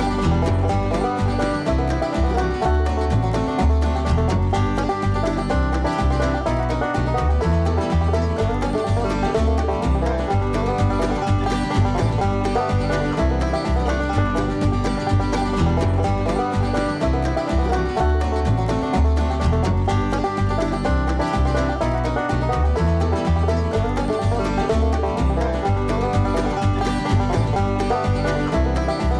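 Bluegrass-style music led by a banjo over a steady beat.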